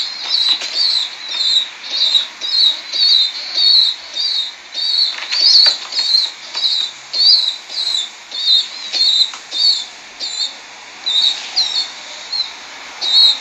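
Duckling peeping steadily in short, high-pitched calls, about two a second, with no pause.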